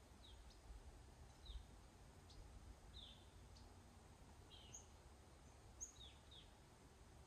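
Near silence with faint small-bird chirps: short downward-sliding calls scattered every second or so, over a faint low rumble.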